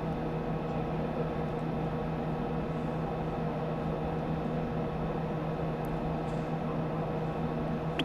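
Steady hum and hiss inside the Soyuz MS-09 crew capsule, carried over the onboard audio feed during the third-stage engine burn, with a few constant low and middle hum tones and no change in level.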